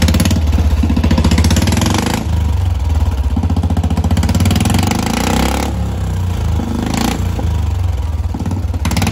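Royal Enfield Bullet 350's single-cylinder engine running loud with no silencer fitted, its exhaust coming straight out of the open header pipe.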